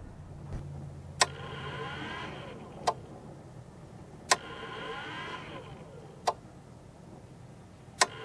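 Relay inside a Renogy 40A DC-DC charger clicking on and off as 12 V comes and goes on its trigger wire, which is spliced into the trailer's marker-light circuit. Five sharp clicks come about every one and a half to two seconds, with a faint whirr between some of them.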